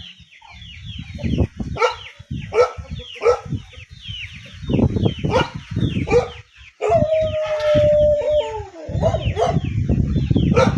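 Farm animal calls: many short, high, falling cries in quick succession, with one long call held at a steady pitch for nearly two seconds about seven seconds in, over low rumbling noise.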